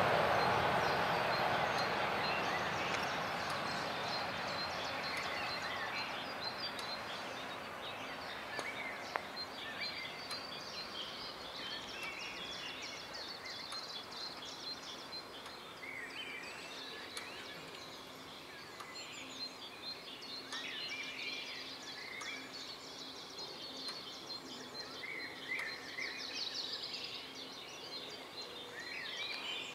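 A DB class 650 diesel railcar dying away into the distance, its rumble fading steadily over the first several seconds. Then birds sing and chirp in many short calls.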